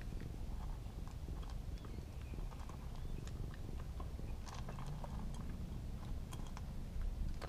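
A cat crunching dry kibble from a bowl: small, irregular crunches and clicks over a low, steady rumble.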